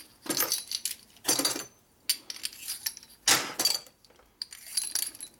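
Loose metal engine parts clinking and jangling against each other as they are handled and moved aside, in several separate short bursts.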